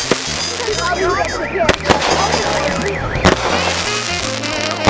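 Aerial fireworks going off, several sharp bangs, the loudest a little past the middle, over background music with a stepping bass line and warbling up-and-down tones.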